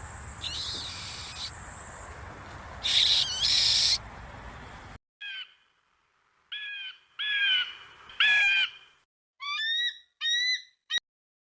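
Bird calls from two recordings. First, repeated calls over a steady background hiss. Then, after a sudden cut about five seconds in, a clean series of short calls falling in pitch, coming quicker and shorter near the end.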